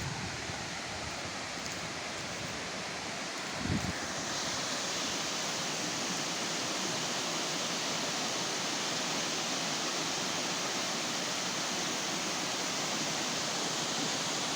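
Waterfall rushing: a steady hiss of falling water that grows brighter and a little louder about four seconds in. A brief low thump just before that.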